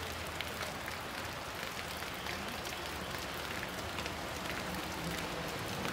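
Steady rushing of the flooded Cumberland River running high and fast, an even noise without breaks.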